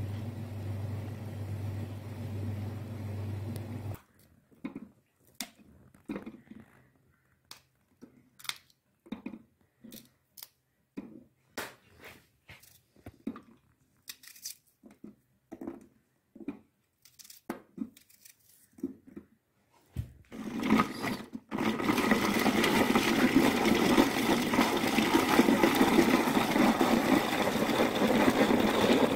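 Potatoes boiling in a pot, a steady bubbling noise with a low hum, for the first four seconds. Then scattered light clicks and taps as a knife works pieces into a stainless-steel hand-crank vegetable chopper. From about two-thirds of the way in, the chopper is cranked steadily, its spinning blades rattling loudly as they chop onion and green chilli.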